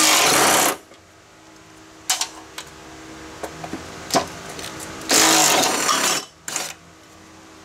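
Cordless Makita impact hammering out the bolts that hold a broken blade spindle to a mower deck. It runs in two bursts, one lasting under a second at the start and one of about a second some five seconds in, with a short blip just after. Light metallic clicks and knocks come in between.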